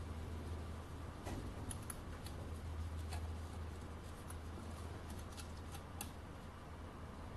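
Faint, scattered small metallic clicks and ticks of an Allen key turning small Allen-headed bolts into a die-cast metal bracket, over a steady low hum.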